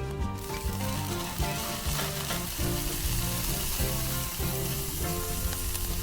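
Food frying in a hot pan, a steady sizzle that comes in just after the start, with background music under it.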